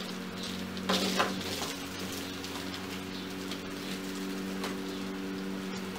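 Old, crumbled orchid bark rustling as it is worked off the roots by hand, most clearly about a second in, over a steady low hum.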